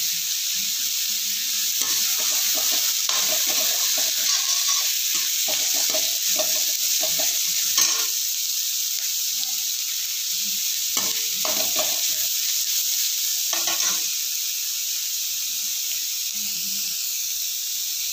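Chopped onion, capsicum and carrot sizzling in hot oil in a metal kadhai while a perforated metal spatula stirs them, scraping and knocking against the pan. The stirring is busiest in the first half and again about two-thirds through, with the steady sizzle in between.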